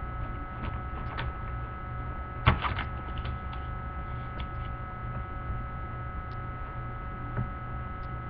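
Steady electrical hum with a thin high whine, as picked up by a low-grade webcam microphone. A single sharp knock comes about two and a half seconds in, with a few faint clicks scattered through.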